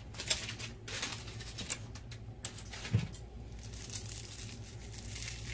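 Crisp fried onions being crumbled by hand over a pot, with irregular crinkling and crackling over a steady low hum and one soft thud about three seconds in.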